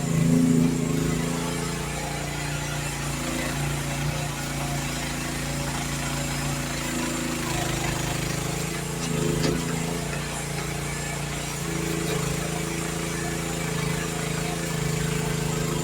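Youtop YT15 mini excavator's engine running steadily while it digs, with a brief louder surge about half a second in and a short knock about nine seconds in.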